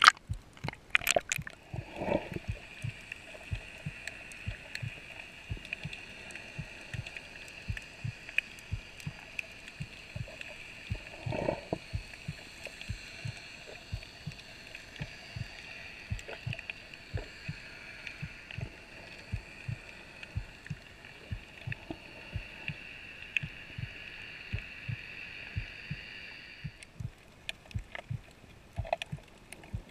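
Underwater sound through a camera's waterproof housing: water splashes at the surface, then a steady whirring hum, with soft regular clicks underneath and a short gurgle about eleven seconds in. The hum cuts off suddenly near the end.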